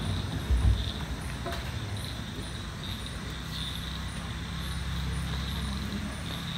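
Open-air night ambience between music cues: a steady low rumble under insects, likely crickets, chirping in short repeated pulses.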